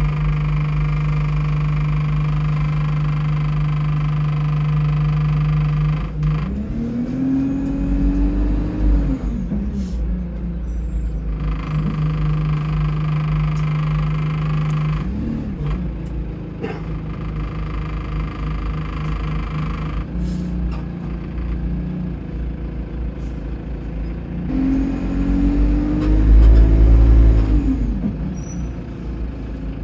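Bus diesel engine, heard on board, idling with a steady whine, then revving up and easing off twice as the bus pulls away: once about six seconds in and again near the end, the louder of the two. The bus's turbo is leaking.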